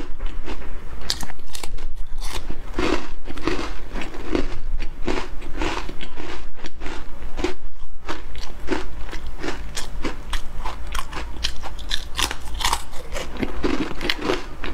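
Crisp caramel biscuits being bitten and chewed close to the microphone: a run of irregular dry crunches, over a steady low hum.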